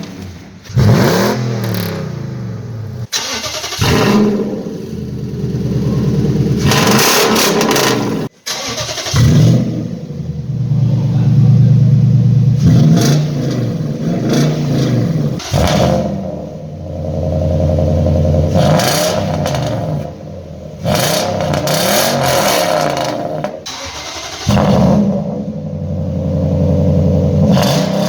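2006 Nissan Titan's 5.6-litre V8 exhaust, revved up and down again and again, in several short clips cut together abruptly. The clips compare the stock exhaust with a Flowmaster Super 10 muffler.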